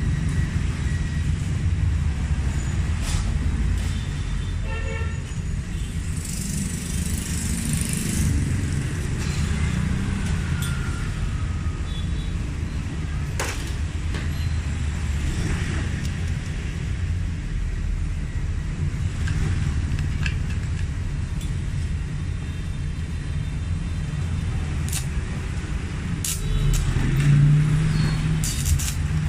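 Megatec 120EF mini inverter stick welder burning a 3.2 mm electrode in one continuous slow bead: a steady arc crackle and hiss over a low rumble of road traffic.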